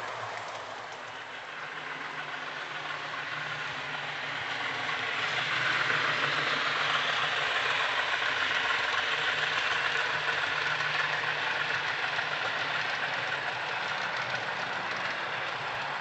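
A DCC sound decoder in a model Class 50 diesel (Coastal DCC sound file on a Zimo MX645 chip) playing the locomotive's engine sound through its small on-board speaker as the model runs. The sound is steady and grows loudest for several seconds in the middle, with the running rattle of model train wheels on the track under it.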